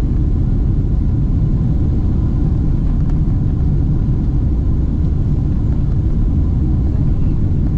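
Steady low rumble of a Boeing 777-300ER jet airliner heard from inside the passenger cabin.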